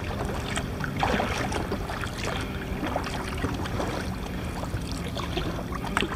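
Sea water lapping and splashing against a kayak's hull: an uneven wash of water noise with scattered small splashes.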